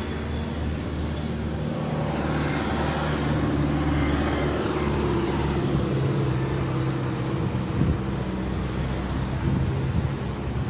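A motor vehicle's engine running close by with road traffic noise, a steady low hum that swells a little a couple of seconds in.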